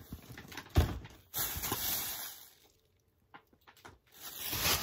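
Cardboard packing sounds: a single thump about a second in as a cardboard oatmeal box goes into a large cardboard shipping box, then a second or so of rustling and scraping, a brief quiet spell, and more rustling near the end.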